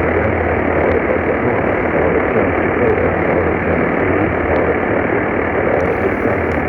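Steady radio static: an even hiss with a low hum underneath, cut off above the treble like a receiver's narrow audio band.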